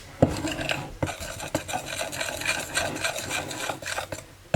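A utensil stirring a thick paste of powdered sugar and lemon juice in an old Pyrex glass bowl: steady scraping with a few sharp clinks against the glass in the first couple of seconds.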